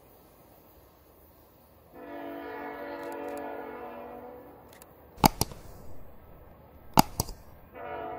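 Distant multi-note horn of a VIA Rail Venture trainset, one long blast of about two and a half seconds, with a second blast starting near the end. Between the blasts come two pairs of sharp, loud clicks.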